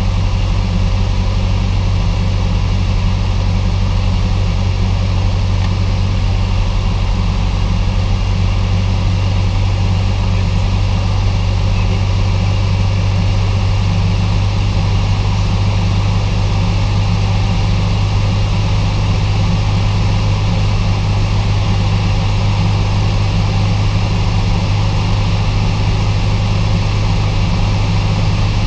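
Cessna 172's piston engine and propeller droning steadily in cruise, heard inside the cockpit.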